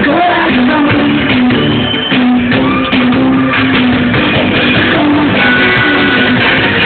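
Live rock band playing loudly over a PA, with electric guitar and drums and a low line of notes stepping from pitch to pitch, heard from within the crowd.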